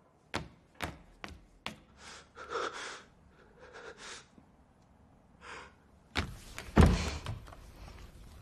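Four sharp knocks on a wooden door in the first two seconds, then soft breathy sounds, then a heavy thud about six and a half seconds in.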